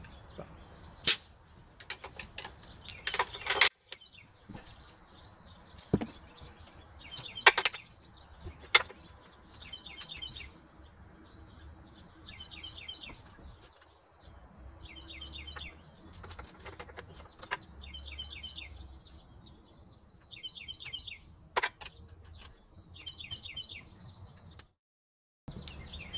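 Sharp clicks and knocks from handling a compression gauge and its hose on an outboard's powerhead, loudest in the first few seconds, with a songbird repeating a short, high chirping trill every second or two.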